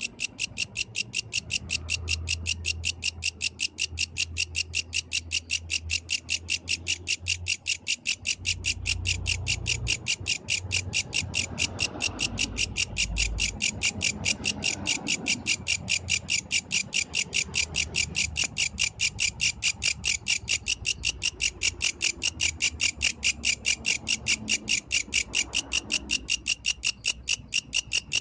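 A yellow grasshopper singing at night: a steady, fast train of high-pitched chirps, about five a second, with a low rumble underneath.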